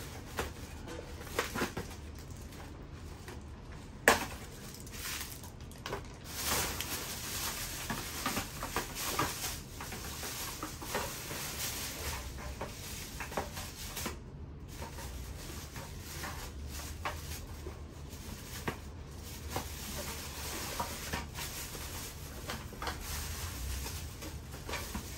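Handling noises from unpacking and assembling an electric bike: scattered clicks, knocks and rustling of parts and packaging, with a sharp click about four seconds in and busier rustling from about six seconds in.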